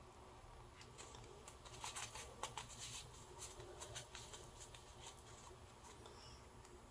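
Faint rustling and scraping of a small piece of denim being handled and poked from inside with a thin metal rod to push out its corners. A cluster of scratchy clicks comes about two to three seconds in, with a few more a second later.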